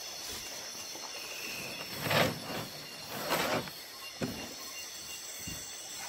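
Steady high chirring of night insects, with two short noisy swishes about two and three and a half seconds in.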